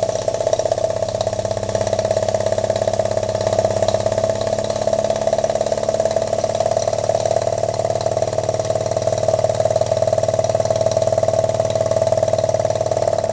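Scratch-built double-acting uniflow-type model steam engine running fast on extra steam, its big central cylinder exhaust giving a rapid, even beat at a steady level.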